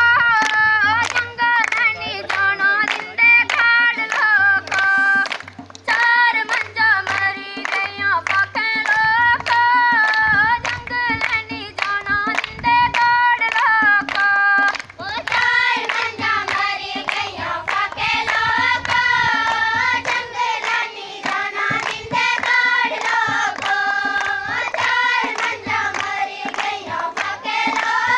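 Group of girls singing a folk song together, accompanied by a steady beat of rhythmic hand claps.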